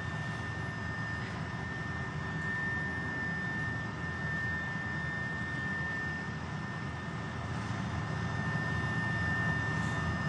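Aircraft engine noise heard from inside the cabin: a steady low drone with a thin, steady high whine above it.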